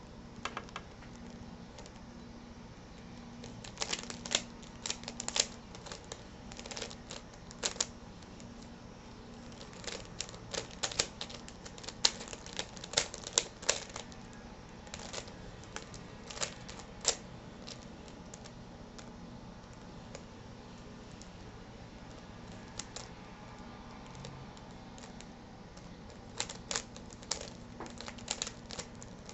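Plastic Square-1 puzzle being turned by hand: quick clusters of sharp clicks and clacks as its layers twist and snap into place, with pauses between the clusters and a longer lull about two-thirds through.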